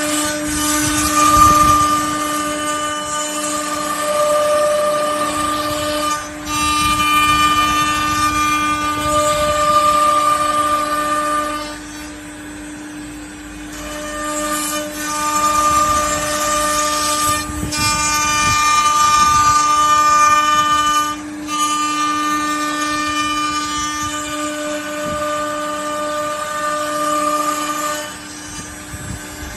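CNC router spindle running at a steady high-pitched whine while cutting wood, with a hissy cutting noise that rises and falls as the tool moves through the work and eases off briefly a few times between passes.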